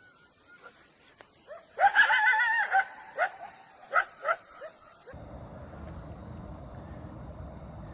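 Coyote giving a short wavering howl followed by a few sharp yips. About five seconds in, it switches abruptly to a steady high chorus of crickets.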